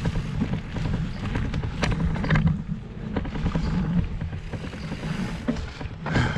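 Mountain bike rolling over the dirt rollers of a pump track: a low, uneven rumble of tyres and wind on the moving microphone, with a few sharp clicks and rattles from the bike over the bumps.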